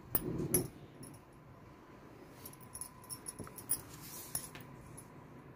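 Handling sounds of marking a pattern on cloth: a short rustle of fabric and tools just after the start, then scattered light taps and clicks.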